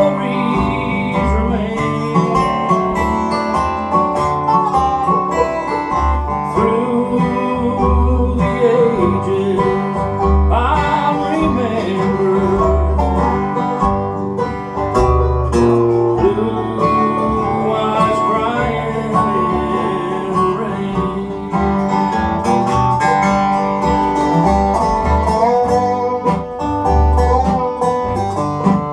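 Live bluegrass band playing: dobro, acoustic guitar and upright bass, with the bass keeping a steady pulse under sliding notes.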